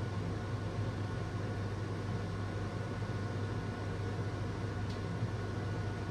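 Logik LCD8W23 condenser tumble dryer running on a test run: its motor and fan make a steady low hum with a faint high whine over a rushing of air.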